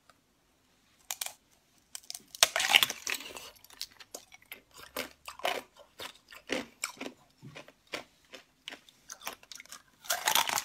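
Close-up crunching and chewing as a hollow, brittle translucent ball is bitten through. A loud burst of cracking comes about two and a half seconds in, then irregular crunches, and another loud burst near the end.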